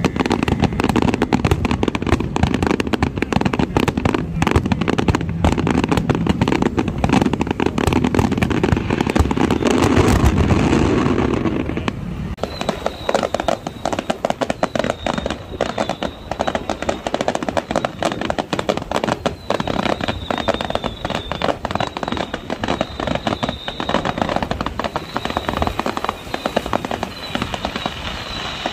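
Fireworks going off in a dense, unbroken run of rapid crackling and bangs. It is loudest and deepest for the first twelve seconds or so, then drops to a thinner, steady crackle.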